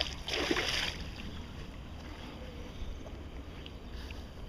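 Giant snakehead thrashing at the water's surface, a loud splash in about the first second, then calm water with a low wind rumble on the microphone.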